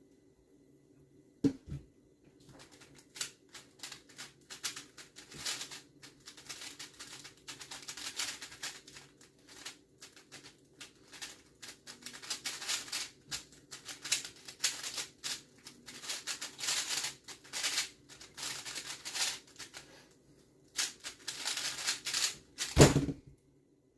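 A Rubik's-type speedcube being turned rapidly through a solve: a dense stream of fast plastic clicks and clacks for about twenty seconds. The solve begins after a single knock and ends with a loud thud near the end.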